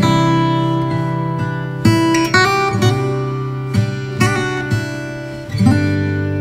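Background music on acoustic guitar: strummed chords and picked notes at a slow pace.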